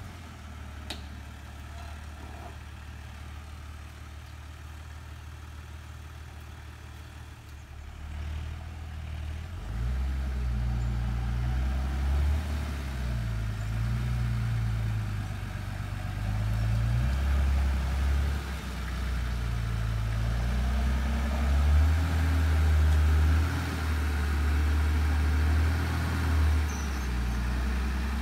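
A four-wheel-drive ute's engine idling low, then from about eight seconds in revving up and down repeatedly under load as it crawls up a steep, rutted dirt climb.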